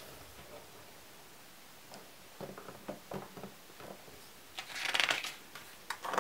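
Pages of a large hardcover photo album being handled: a few soft rustles of fingers on the paper, then a page lifted and turned with a loud papery swish about five seconds in, and another rustle starting right at the end.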